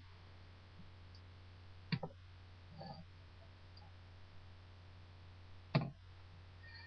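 Quiet room with a steady low hum, broken by two short sharp clicks about four seconds apart.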